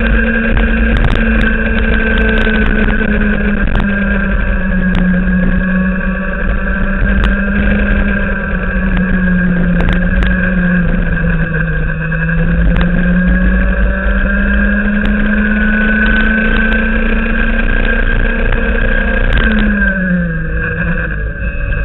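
Racing kart engine running hard at high revs through a lap, its note staying high with small rises and dips. The note falls away near the end as the kart slows. Underneath there is a constant low rumble and scattered sharp ticks.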